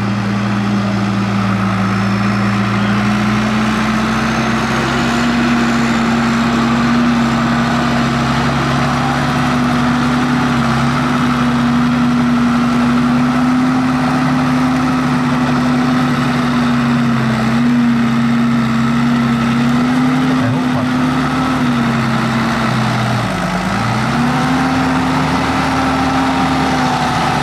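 A tractor engine running at a steady speed. It dips briefly in revs about 23 seconds in, then picks back up.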